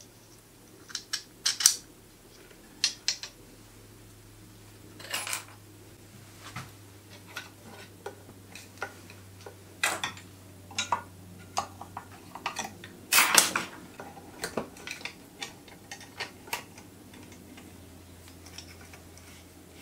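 Small metal parts clicking and clinking at irregular intervals as a hex key and screws are worked to fit a bracket onto a lathe bed, the loudest clatter a little past the middle.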